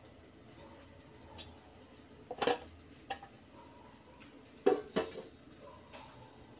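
Metal lid clanking onto an aluminium cooking pot: a short clatter about two and a half seconds in, then two sharp clanks close together near five seconds as the lid is set down.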